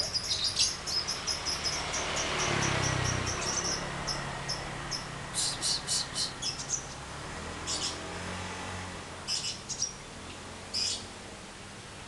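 Caged lovebirds chirping in short high-pitched calls. A fast string of chirps at the start, then bursts of several chirps every second or two. A low rumble swells and fades about two to three seconds in.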